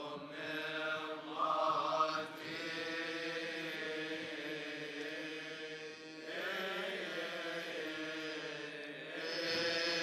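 A man's voice chanting a long, drawn-out line of Coptic liturgical chant, holding notes and moving slowly in pitch without pausing.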